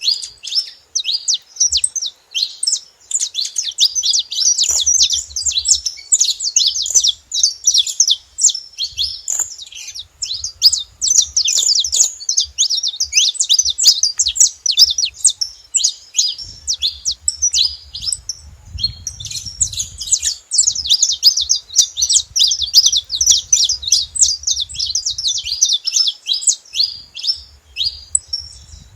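Saffron finch (canário-da-terra) singing: a long, fast, nearly unbroken run of high chirps and trills, with a short pause about halfway through.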